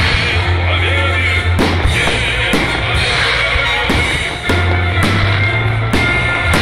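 Music with a heavy sustained bass line, over which fireworks go off in several sharp bangs at irregular intervals.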